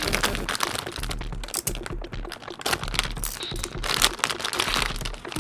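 Plastic packaging crinkling and crackling as it is handled and opened, with many small irregular clicks.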